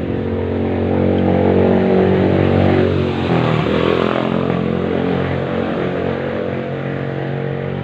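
A small motorcycle engine running steadily, its pitch dipping and wavering briefly about three to four seconds in.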